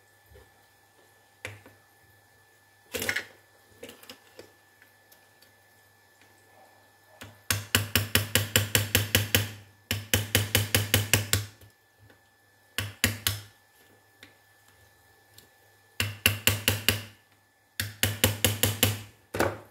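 A hand tool working hard at a wireless microphone's corroded battery contact: several runs of quick, even metal strokes, about ten a second, each lasting one to two seconds, with a single knock before them.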